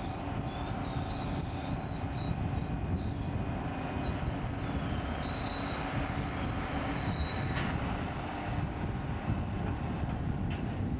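Diesel engine of a piggyback trailer-lift crane running steadily while it hoists a highway trailer over a flatcar. Short high squeaks come through in the first half, and a couple of sharp clicks or clanks come in the second half.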